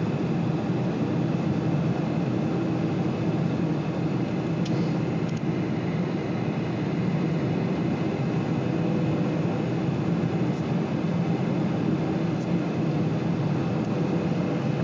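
Steady cabin noise inside a Boeing 747 in flight: the even hum of the jet engines mixed with the rush of airflow past the fuselage.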